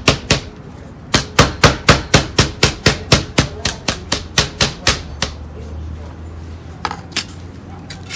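Fresh ginger being smashed on a plastic cutting board with a heavy blunt tool: a fast run of knocks, about five a second, with a short pause about half a second in. The pounding stops about five seconds in, followed by two single knocks near the end.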